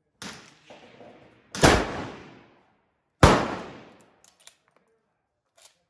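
Two loud rifle shots about a second and a half apart, each ringing out under the covered range roof, after a fainter bang at the start; a few light clicks near the end.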